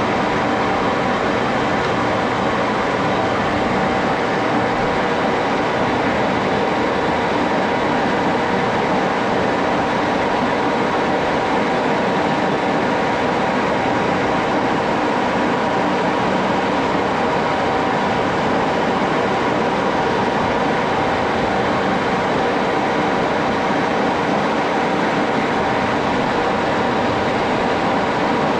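1941 Axelson metal lathe running steadily under power, an even mechanical rumble with a steady whine through it.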